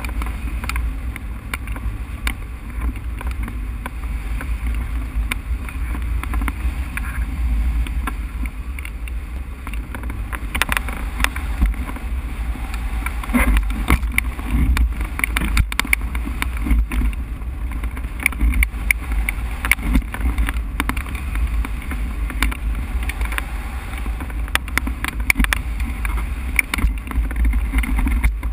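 Airflow over a hang glider in flight buffeting the glider-mounted camera's microphone: a steady low rumbling rush of wind, with scattered rattles and ticks from about ten seconds in.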